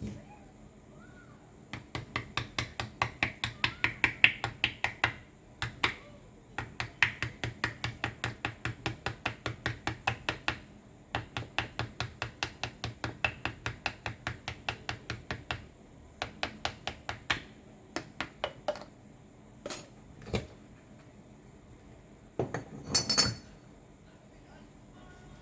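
Metal parts being worked with hand tools: runs of sharp metallic taps, about four a second, then a few shorter groups and single taps.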